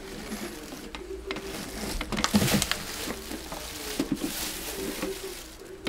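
Clicks, knocks and rustling of an electric thermopot being handled, its plastic body and hinged lid knocking as it is turned over, with a louder burst of rustling and clatter about two to three seconds in.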